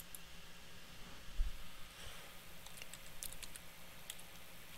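Computer keyboard typing: a quick run of faint key clicks in the second half, after a soft low thump about one and a half seconds in.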